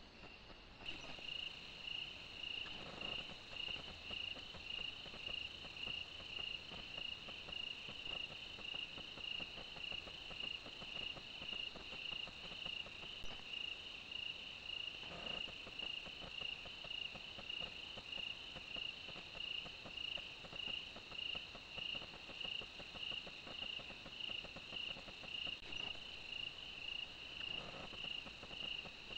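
Night chorus of crickets: a steady, high-pitched, pulsing chirp with a fainter higher insect hum above it, growing louder about a second in.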